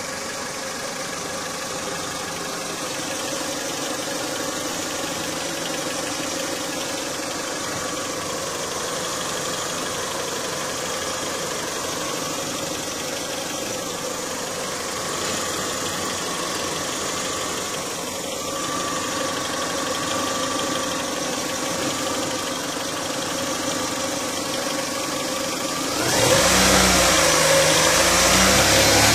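An engine idling steadily, then revved near the end, its pitch rising and falling.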